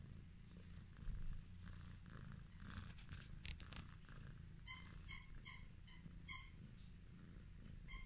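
Highland Lynx cat purring steadily, a faint low rumble, with a few faint clicks a little past the middle.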